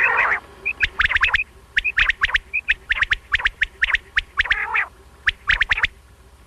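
Common quail calling: quick sharp phrases of two to four high notes repeated every half second or so, with softer short notes between them. Twice there is a rougher, lower burst, once at the start and once about four and a half seconds in.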